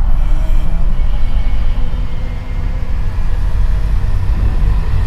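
A loud, low rumbling drone with faint steady tones above it, the unexplained sky sound that the person recording reacts to.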